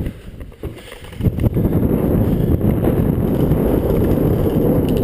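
Wind buffeting the microphone: a dense, low rumble that dips briefly, then comes back and holds steady from about a second in.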